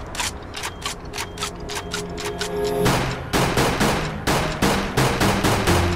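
Intro music with a fast, punchy drum beat over held bass and synth notes that change pitch in steps; the beat turns heavier and slower about three seconds in.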